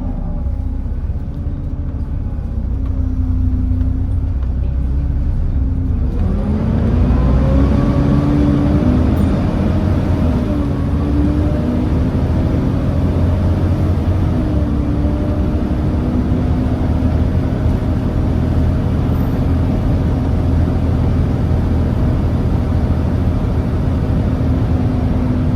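Volvo B7TL bus's Volvo D7C six-cylinder diesel engine heard from on board, running steadily and lightly at first, then revving up about six seconds in as the bus accelerates and settling into a louder, steady drone through the ZF Ecomat automatic gearbox.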